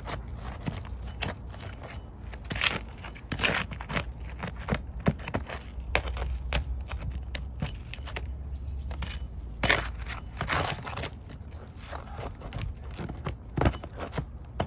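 Roofing hand tools working on brittle asphalt shingles: irregular scrapes, clicks and cracks as nails are pried out and the shingles break. A low rumble runs underneath, heavier for a few seconds in the middle.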